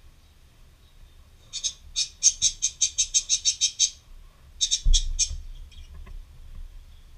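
Graphite pencil scratching back and forth on paper in quick, even strokes, about six a second for some two and a half seconds, then a short run of three or four more strokes with a soft thump, as the tip of the beak outline is gone over.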